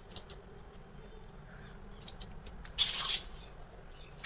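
Close-up eating sounds from a person: small, sharp wet mouth clicks and smacks, in a cluster at the start and again about two seconds in, then a short rustling burst about three seconds in as food is taken from the paper.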